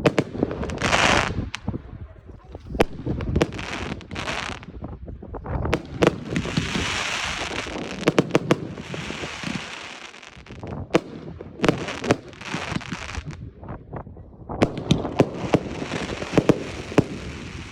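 Riakeo Tang Ren Jie firework battery firing a run of shots: repeated sharp bangs, some in quick clusters. Two long stretches of crackling hiss come about six seconds in and again near the end.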